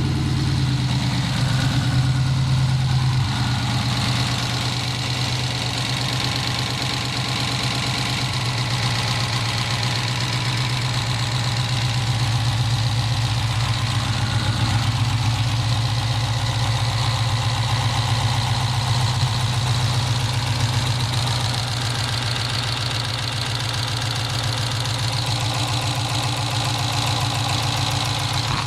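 Engine idling steadily, freshly fitted with an aftermarket performance cylinder head and camshaft, with a rapid light ticking in the running that the owner wonders may be lifter noise.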